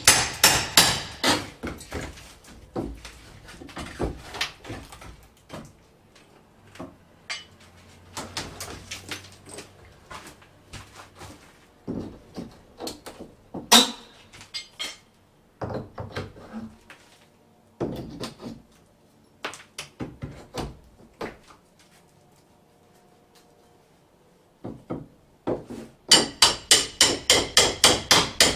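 Hammer striking a bathroom's plaster wall during demolition: quick runs of blows, about three or four a second, near the start and again near the end, with scattered single knocks between.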